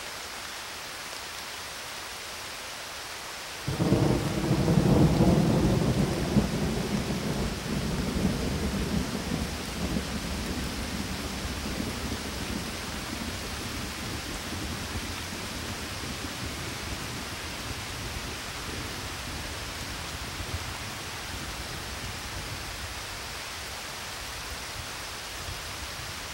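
Steady rain hiss with a rumble of thunder breaking in suddenly about four seconds in, loudest for a couple of seconds and then rolling away over the next ten seconds or so.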